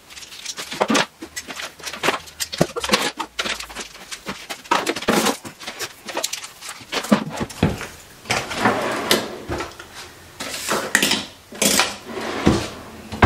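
Hair styling tools and their cords handled and packed into a wooden vanity drawer: a steady run of knocks, clicks and clatter with rustling between them.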